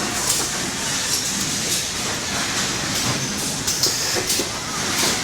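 Factory assembly-line noise from microwave oven production: a steady mechanical din with high hiss and scattered clicks and knocks.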